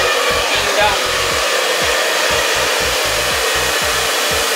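Handheld hair dryer switching on with a sudden rush of air right at the start, then running steadily and loudly while it blows on the hair. A music track's steady beat continues underneath.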